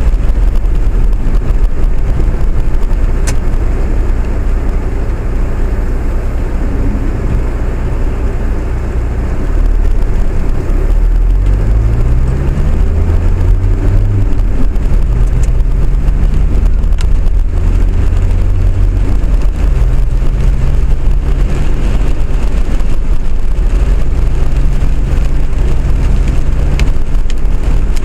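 Vehicle on the move, heard from on board: a steady low rumble, with a motor's pitch rising about eleven seconds in and then holding at a steady hum.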